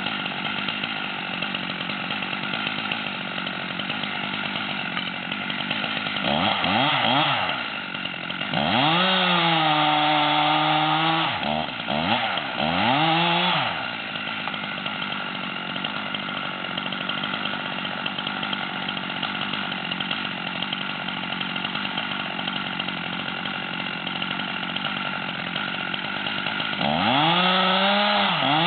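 Two-stroke chainsaw idling steadily, revved up in several bursts about a third of the way in and again near the end, its pitch climbing and then holding as it works in the felling cut on a dead fir.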